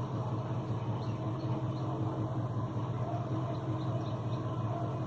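A car's engine idling, a steady low hum heard from inside the stopped car.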